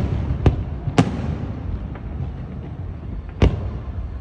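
Aerial fireworks shells bursting: two sharp bangs about half a second apart, then a third about two and a half seconds later.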